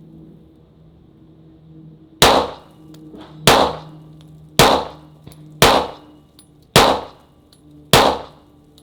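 Six 9mm pistol shots from a Glock 19 Gen 5 with a Parker Mountain Machine compensator, fired at a steady pace of roughly one a second. Each is a sharp crack with a brief ring-out.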